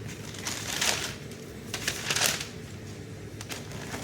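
Paper packing material rustling as it is handled, in two bursts: about half a second in and again around two seconds, with a few light clicks.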